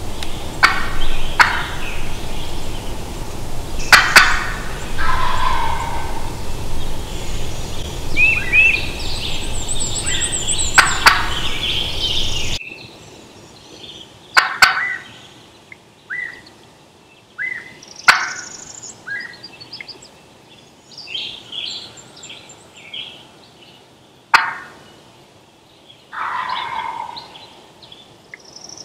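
A wild turkey gobbler gobbling again and again, each gobble a loud rattling burst, with faint high-pitched songbird trills between them. A steady rushing background fills the first half and drops away suddenly about halfway through.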